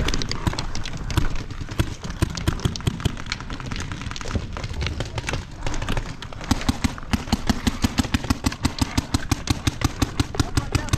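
Rapid gunfire from several guns: a dense, near-constant stream of sharp shots. From about six and a half seconds in, one gun fires a steady string of about nine shots a second.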